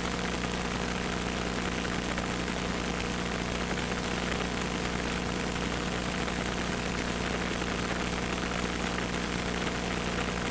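Single-engine piston airplane's engine and propeller running steadily on approach to landing, heard from inside the cockpit.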